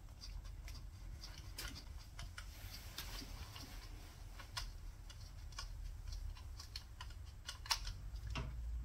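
Faint, scattered small clicks and taps of a screwdriver and small metal parts as the contact breaker points are unscrewed from a classic Mini's distributor, with a couple of sharper clicks near the end.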